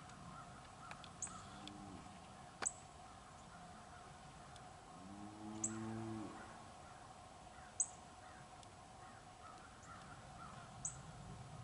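Faint distant bird calls, with one low drawn-out animal call lasting about a second about five seconds in, and a few short sharp ticks.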